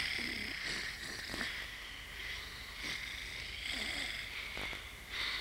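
Soft snoring of sleeping characters, a breathy sound rising and falling in slow, regular breaths.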